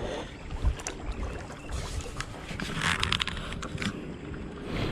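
Kayak paddle strokes dipping and splashing in river water, with the biggest splash about three seconds in.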